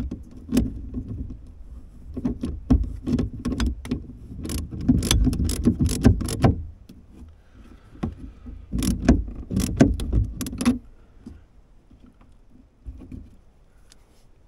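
Hand ratchet with a socket clicking in quick runs as a nut on the toolbox lid latch is turned, mixed with metallic clinks of the tools. The clicking stops about eleven seconds in.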